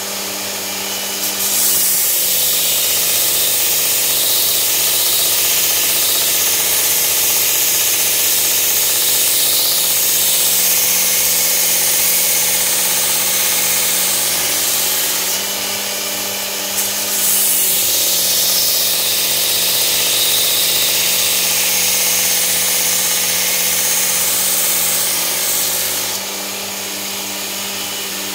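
Work Sharp Ken Onion belt sharpener with the blade grinding attachment running on its coarse belt, a steady motor hum under a bright grinding hiss as a knife edge is held against the abrasive belt in two long passes, easing off briefly about halfway through. The grinding is raising a burr (wire edge) on the blade's second side.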